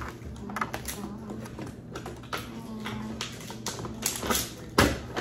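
Irregular small clicks and rustles of cardboard and plastic toy packaging being handled and pried open by hand, with one sharper knock near the end.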